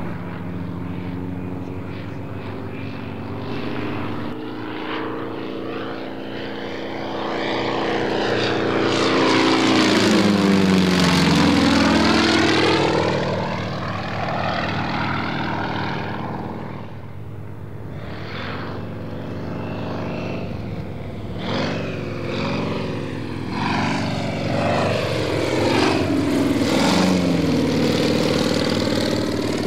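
Yak-52's nine-cylinder radial engine and propeller running during an aerobatic display, the engine note shifting in pitch through the manoeuvres. It is loudest as the aircraft passes close about ten seconds in, and loud again over the last few seconds.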